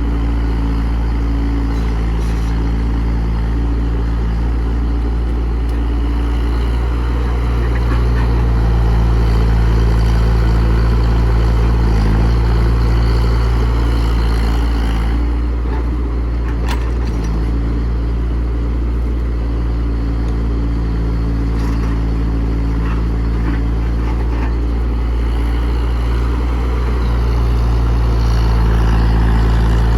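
Komatsu PC68 excavator's diesel engine running steadily, growing louder about a third of the way in and again near the end.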